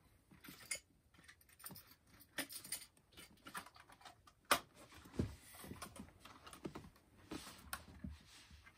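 Faint, irregular light clicks and small metallic rattles of fishing lures and their hooks being handled on a corkboard wall, with one sharper click about four and a half seconds in.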